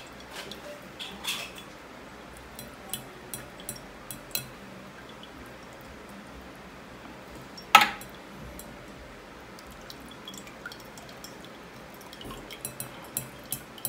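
Small taps and clinks of an opened tuna can and a spoon against a wire-mesh strainer as canned tuna in oil is scraped out into it over a glass bowl, with the oil dripping through. One sharper clink about eight seconds in.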